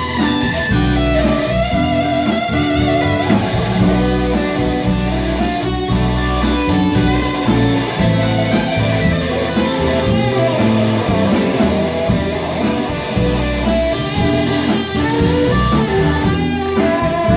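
Live rock band playing an instrumental passage with no vocals: electric guitars over bass, drums and keyboard, with a lead line of wavering, bent notes in the first few seconds.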